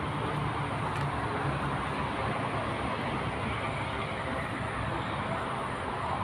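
Steady rumble of road traffic passing over the concrete bridge overhead, an even wash with no breaks.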